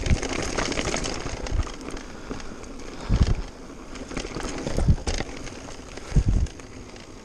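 Mountain bike riding down a rocky dirt trail: the tyres crackle over stones and the bike rattles, with several heavy low thumps over the bumps, about three seconds, five seconds and six seconds in.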